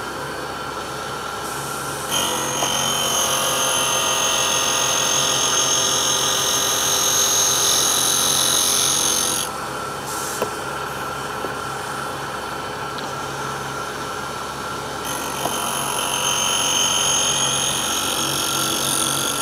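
Motor-driven grinding wheel of a tool-and-cutter grinder running with a steady hum while an end mill is sharpened against it in two passes. A high, hissing grind sets in about two seconds in and lasts about seven seconds, then comes back for a few seconds near the end.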